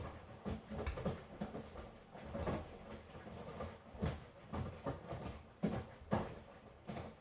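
Miele front-loading washing machine tumbling a wash: wet laundry and water sloshing and dropping in the drum in soft, irregular thuds about once or twice a second.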